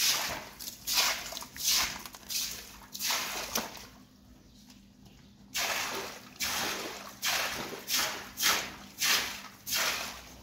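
Rhythmic swishing strokes, one about every two-thirds of a second, with a pause of about a second and a half near the middle: the sound of hand cleaning work such as scrubbing.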